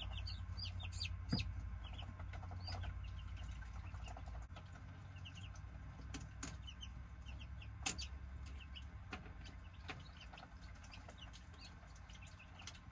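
Newly hatched chicks and ducklings peeping, many short high chirps over and over, with a few sharp clicks in between.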